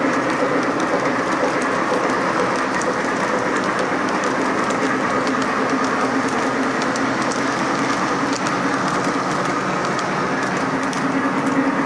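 Lionel Legacy O-gauge model train, a Nickel Plate Road 2-8-4 Berkshire pulling a long string of tank cars, running steadily: an even rolling rumble and hiss of wheels on the track with a stream of small clicks over the rail joints.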